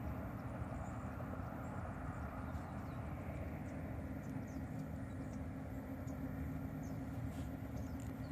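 Steady low rumble of wind on the microphone, with a few faint high chirps.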